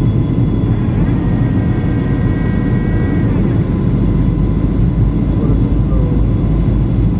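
Steady cabin roar of a Boeing 737-900 in flight, heard from inside the cabin: its CFM56-7B engines and the airflow make a deep rumble with a faint steady whine on top. A brief higher, humming tone sounds from about one second in to about three seconds in.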